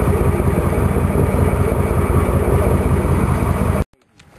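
Fishing boat's engine running, mixed with heavy wind buffeting the microphone, a loud, steady rumble. It cuts off abruptly near the end.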